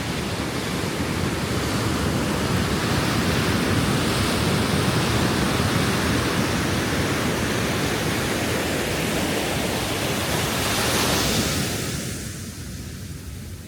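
Ocean waves breaking and washing on a shore as a continuous rush of surf, with one wave surging up louder near the end and then falling away.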